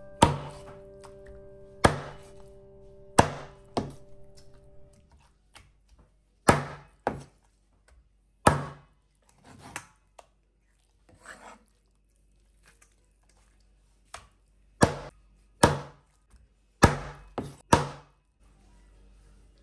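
Heavy chops of a kitchen knife on a cutting board, about fourteen separate strokes at uneven spacing, some single and some in quick runs of two or three, cutting up food for a duck curry.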